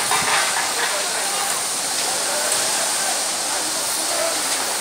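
Steady rushing hiss of river water churned up as a ship slides sideways off its launching airbags, with a short louder burst right at the start.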